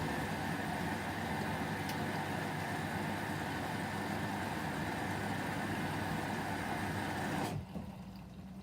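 Whirlpool washing machine running on a 30° delicate cycle: a steady mechanical noise with a low hum, which stops abruptly near the end and leaves only a faint low hum.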